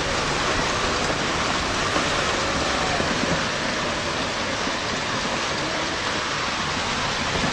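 Heavy rain mixed with hailstones pelting down, a dense, steady hiss.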